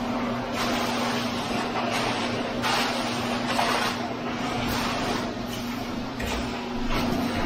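Concrete pump running with a steady low hum while wet concrete gushes from the line hose in irregular surges, with rakes scraping through the fresh concrete.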